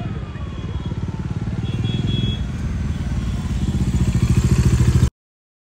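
Bajaj Dominar 400's single-cylinder engine running with a rapid, even exhaust pulse as the motorcycle is ridden. It grows louder over about five seconds, then cuts off abruptly.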